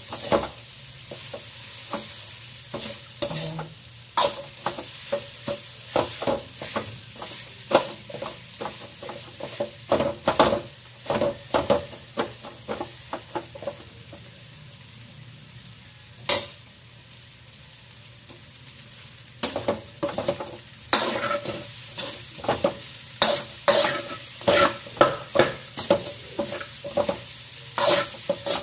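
Metal utensil scraping and clacking irregularly against an aluminium wok as rice is stir-fried, over a steady sizzle of frying. Past the middle the scraping pauses for a few seconds, leaving the sizzle and a single sharp clack, then quick scraping resumes.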